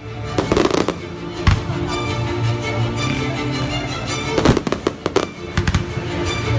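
Fireworks going off in sharp bangs, a few about half a second in, one near one and a half seconds, and a quick cluster around four and a half to five and a half seconds in, over music with steady sustained tones.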